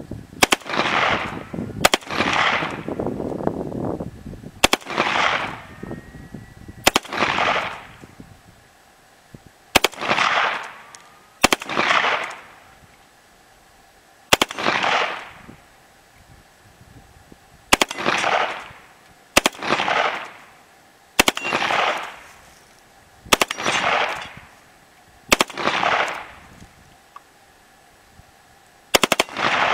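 Suppressed .22 pistol fired in single semi-auto shots, about thirteen spaced every two to three seconds. Each is a sharp crack followed by a fading tail lasting about a second.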